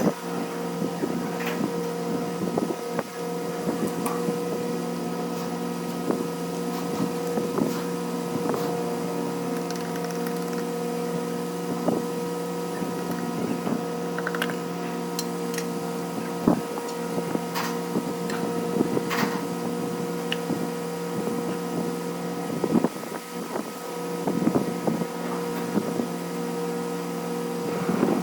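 A steady machine hum, a constant drone holding several pitches, with scattered sharp clicks and clinks over it.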